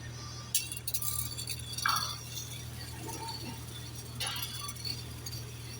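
Several light metallic clinks and taps, scattered irregularly, over a steady low hum.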